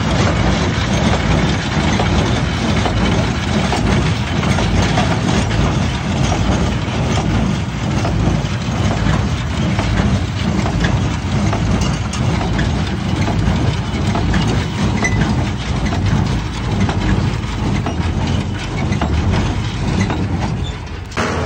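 Bamford small square hay baler working behind a tractor: a loud, steady mechanical clatter of the baler's plunger and feed mechanism over the tractor engine as hay is packed and bales are pushed out of the chute.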